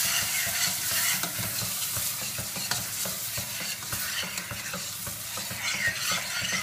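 Onion, garlic, ground spices and peeled tomatoes sizzling as they fry in a pan, stirred with a utensil that clicks against the pan now and then.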